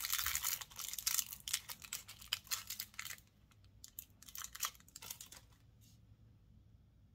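Thin clear plastic wrapper crinkling as a small macaron-shaped eraser is unwrapped by hand. The crinkling is dense for about three seconds, then thins to a few scattered crackles.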